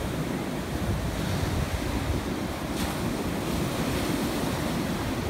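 Ocean surf breaking and washing up the beach, with wind buffeting the microphone as a low, uneven rumble.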